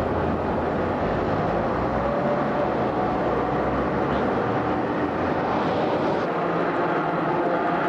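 Hong Kong double-deck electric tram running past along its street track: a steady, even noise of steel wheels on the rails and the traction motors, with no sudden knocks.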